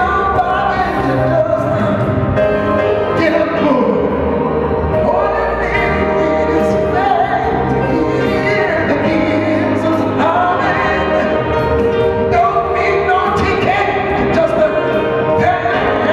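Gospel choir singing with a male lead vocalist on a microphone, backed by keyboard, performing live.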